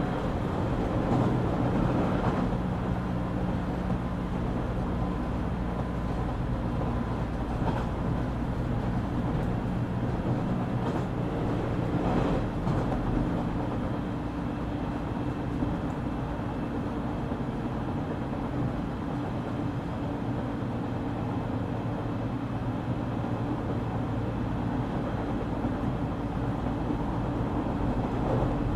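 Running sound inside a JR Kyushu 817 series electric train: a steady drone of wheels on rail under several low humming tones from the motors and gearing, with a few faint clicks. The car is an odd-sounding one whose running sound resembles a Keio 7000 series.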